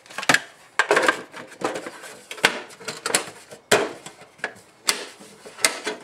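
Hammers and other hand tools clattering and knocking as they are packed into a red metal toolbox, then the lid shutting and the latches clicking closed. The knocks come irregularly, a dozen or so sharp hits.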